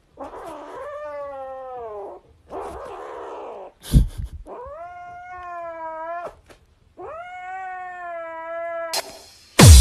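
Grey kitten giving four long, drawn-out yowls, one of them rough and growly, while it clutches a plush toy against a reaching hand: a kitten's protective yowling over its toy. A sharp thump about four seconds in.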